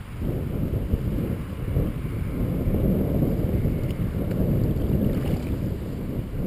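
Wind buffeting the microphone: a loud, uneven low rumble that surges up suddenly at the start.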